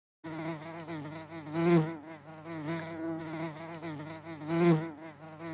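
Bee buzzing: a steady, wavering hum that swells louder twice.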